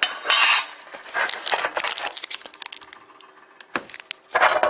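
Shrink-wrap seal and cardboard of a trading-card box being torn open by hand without a knife: a string of crinkling, crackling rustles and sharp snaps, loudest at the start and again near the end.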